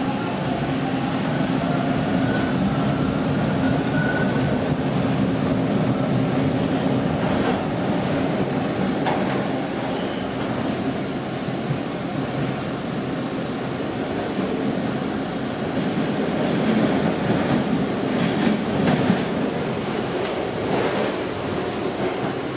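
Toronto Line 2 subway train (TTC T1 car) running, heard from inside the car as it leaves the station and picks up speed. There is a steady rumble of wheels on rail, with a hum in the first few seconds, and clickety-clack and a few sharp clacks at rail joints about a third of the way in and again past the middle.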